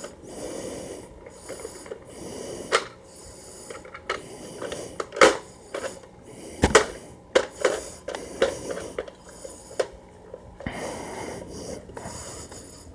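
A person breathing close to the microphone in repeated breaths, with scattered sharp clicks and knocks from handling and moving about.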